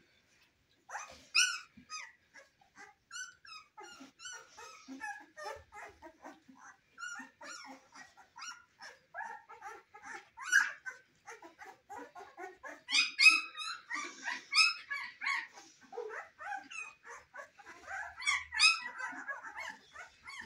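Young Cane Corso puppies crying, with many short high-pitched calls overlapping one another. Louder calls come about a second in, again about two-thirds of the way through, and near the end.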